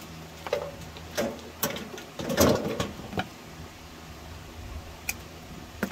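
Irregular plastic clicks, knocks and rattles of microwave door interlock switches and their wires being pulled out of the latch housing, busiest about two and a half seconds in, with a single click near the end.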